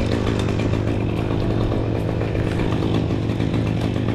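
Chainsaw engine running steadily at a constant speed.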